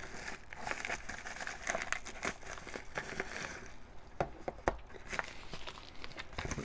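Packaging being handled and unpacked: steady rustling and crinkling, with small clicks and a few sharper taps.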